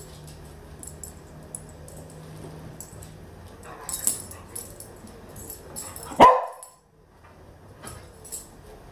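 A working cocker spaniel gives one short bark about six seconds in, with a few light knocks before it.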